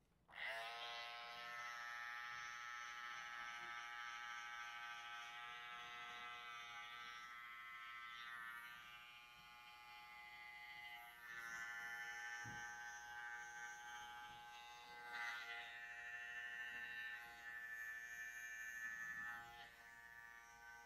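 Electric hair clipper switched on with a sudden start, then buzzing steadily as it trims the hairline at the back of the neck, its hum dipping a little now and then as it moves.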